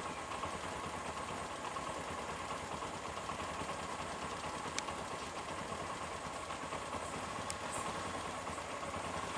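A vehicle engine idling steadily, with two faint brief clicks about halfway through and near the end.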